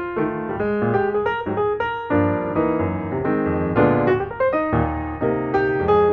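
Piano music: single notes and chords struck one after another, each ringing and fading.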